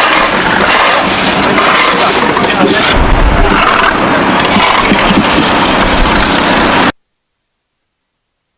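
Loud, steady rushing of the flooded River Wharfe, with wind buffeting the microphone now and then; it cuts off abruptly about seven seconds in.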